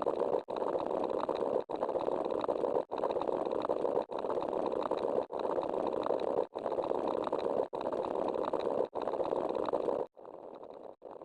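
A short buzzing, motor-like sound effect looped over and over, each repeat about 1.2 seconds long with a brief cut between them. It turns much quieter, with quicker repeats, near the end.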